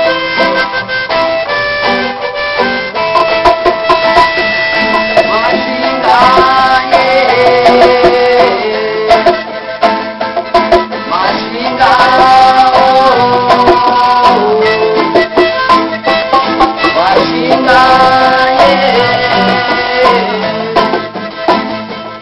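Live acoustic band playing an instrumental passage: a strummed charango and an acoustic guitar keep a fast, steady strum. From about six seconds in, a held, bending melody line rides on top.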